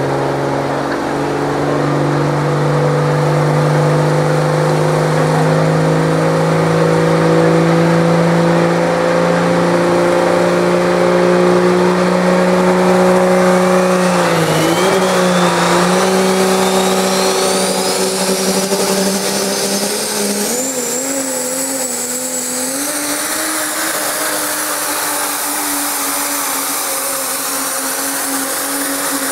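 Diesel pickup truck under full load pulling a weight-transfer sled. The engine's drone climbs slowly in pitch and dips briefly about halfway. Over the second half a turbocharger whistle rises steadily to a high pitch.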